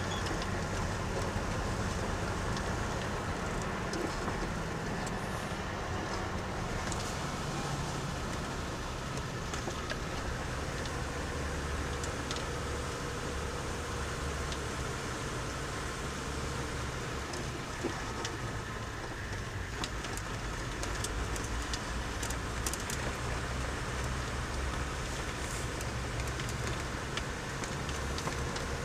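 Car on the move: steady engine and tyre rumble with a few faint rattles and clicks.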